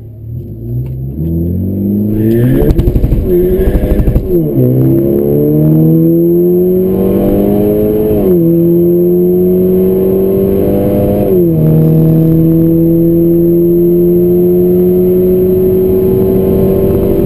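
A modified turbocharged Volkswagen Golf four-cylinder, heard from inside the cabin, launching hard on a drag strip and accelerating flat out. The revs climb with a choppy, pulsing stretch off the line, then drop sharply at three quick upshifts about four, eight and eleven seconds in, rising steadily between each one.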